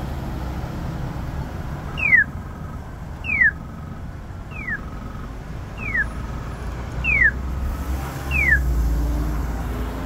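Polara EN4 accessible pedestrian signal sounding its walk tone: six short falling chirps, one about every 1.2 seconds, starting about two seconds in. The chirp is the tone used for an east–west crossing and signals that the walk interval has begun. Traffic rumble runs underneath and swells near the end.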